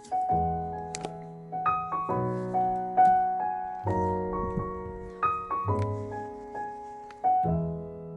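Piano music: a gentle run of chords, each struck and left to ring and fade before the next comes in.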